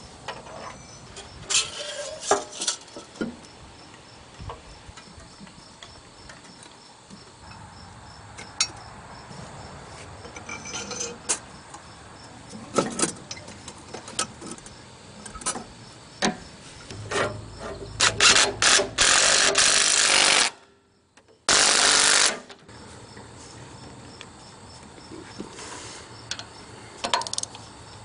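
Ratchet wrench and socket working the bolts of a newly fitted exhaust manifold on a 1969 Ford 4000 tractor engine: scattered metallic clicks and knocks. Near the end come two loud stretches of fast clicking, broken by a second-long gap.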